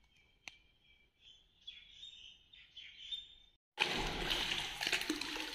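Faint bird chirps and a couple of clicks, then, from about four seconds in, a loud rough rush of water sloshing and splashing as a man wades waist-deep through debris-choked well water.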